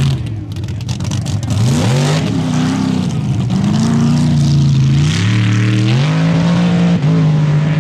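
Open tube-chassis mud buggy's engine revving hard, its pitch climbing and dropping several times and then holding high and steady near the end, as the buggy spins its big tires in loose dirt.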